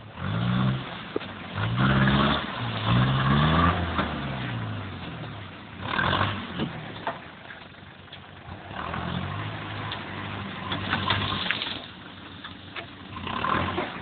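Mitsubishi Pajero 4x4 engine revving in repeated surges, its pitch rising and falling several times, loudest in the first few seconds, as it labours up a muddy forest slope.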